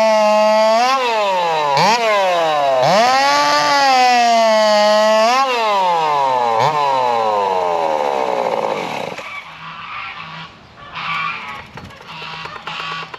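Race-modified two-stroke chainsaw running on a 20% nitromethane/alcohol fuel mix, revving up and down several times at high speed. Its revs then fall steadily until the engine stops about nine seconds in, followed by faint clatter.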